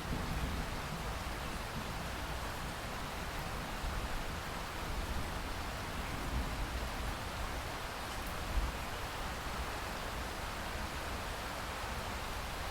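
Steady rain falling on a lake, an even hiss with no single drops standing out; the low rumble of a thunder roll dies away just after the start.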